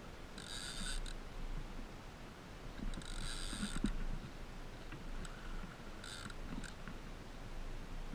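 Fishing reel whirring in three short bursts, each up to about a second long, under the strain of a large fish on the line.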